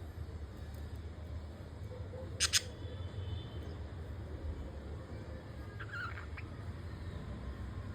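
Budgerigars calling: two short sharp chirps about two and a half seconds in, and a brief wavering chirp about six seconds in, over a steady low hum.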